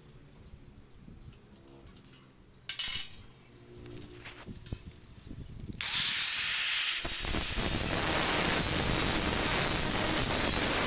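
Angle grinder with a thin cut-off disc cutting into a metal rod held in a vise. It starts abruptly about halfway through, after a few quiet handling clicks, and then runs loud and steady.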